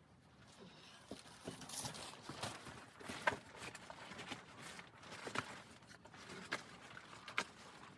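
Irregular series of sharp knocks and crunchy clicks, a few louder ones spaced about one to two seconds apart.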